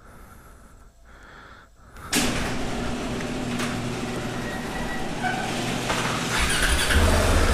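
Garage door opener running as the door rolls up: a steady mechanical noise that starts suddenly about two seconds in. Near the end the KTM 690 supermoto's single-cylinder engine fires for its first start and settles into a low, pulsing idle.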